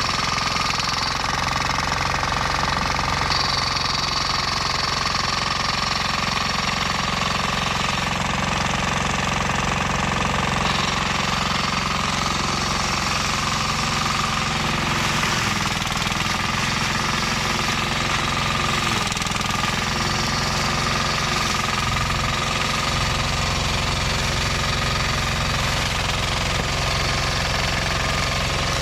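The 18 hp diesel engine of a flail mower running steadily, with a rapid, even knocking beat.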